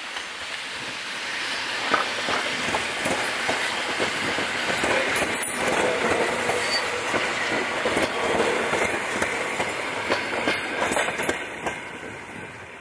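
EN57 electric multiple unit passing close by: a steady rumble of the carriages with a rapid clatter of wheels over rail joints. It builds over the first couple of seconds and fades near the end as the last car goes by.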